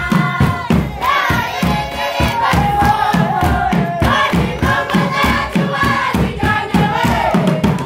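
A group of voices singing a traditional Rwandan dance song together over a steady drumbeat, about two or three beats a second.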